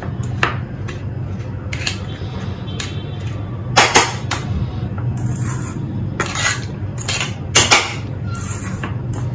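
Steel spoon scraping and tapping against the inside of a round metal tin as crushed biscuit crumbs are spread and pressed into an even pie base. It comes as a handful of short scrapes, the loudest about four and about eight seconds in, over a steady low hum.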